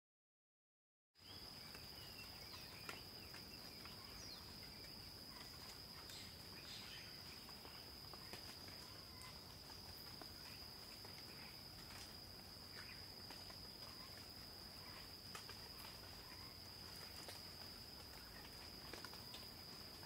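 Faint forest ambience with one continuous, high-pitched insect trill that starts abruptly about a second in, over a soft background hiss with scattered small clicks and brief chirps.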